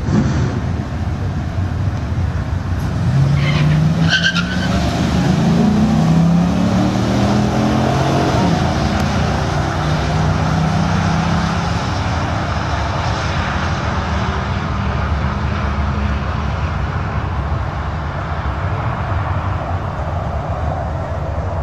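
Hemi V8 of a Dodge Ram Rumble Bee pickup launching down a drag strip beside another car. About three seconds in, its pitch climbs in steps through several upshifts, then settles into a steady drone that thins out as the vehicles run away down the track.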